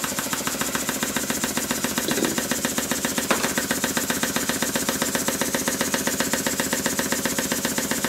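Stuart model beam engine running fast on compressed air, with a rapid, even rattle of knocks that sounds like a machine gun.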